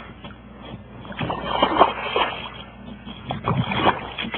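Water splashing and sloshing in irregular bursts, about a second in and again near the end, as a hooked largemouth bass is brought to a small boat.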